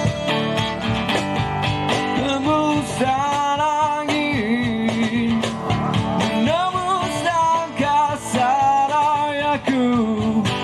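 Band music without lyrics: strummed guitar and drums, with a lead melody line from about two seconds in that slides and wavers in pitch.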